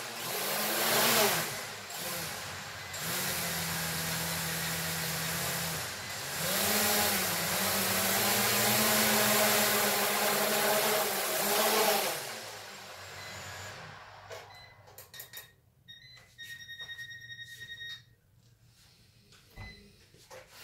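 Small quadcopter drone's motors and propellers whirring, the pitch rising and falling as they spin up and down, then winding down about twelve seconds in. After that come a few light clicks and a steady electronic beep lasting about a second and a half.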